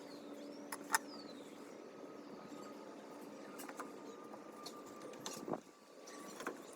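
A few sharp clicks and knocks, the loudest about a second in and others scattered later, over a faint steady hum.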